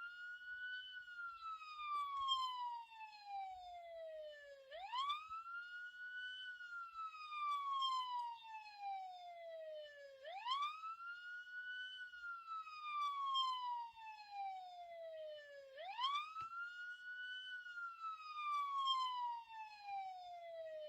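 Police siren wailing: the pitch sweeps quickly up, then glides slowly down, and the cycle repeats about every five and a half seconds.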